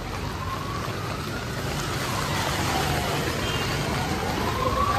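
An emergency vehicle's siren wailing slowly up and down and growing louder, over the steady rush of floodwater running down the street.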